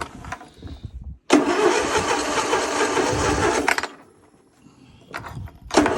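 Electric starter cranking a Briggs & Stratton lawn-tractor engine in two tries: a steady run of about two and a half seconds that cuts off abruptly, then a second try starting near the end. The engine does not catch and run.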